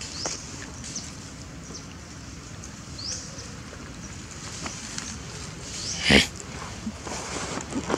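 Monkeys calling: two short, high, rising squeaks, then one loud, short cry about six seconds in, over a rustling background.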